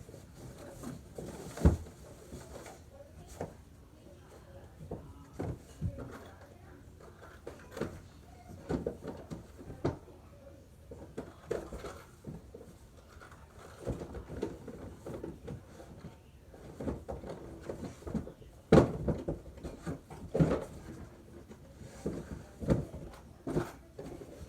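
Irregular knocks, bumps and clatters in a small room, like drawers or cupboard doors being handled, with faint voices now and then; the loudest thump comes about three-quarters of the way through.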